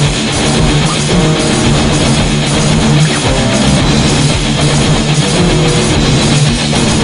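Heavy metal music: electric guitar improvising over a backing track with drum kit, playing continuously.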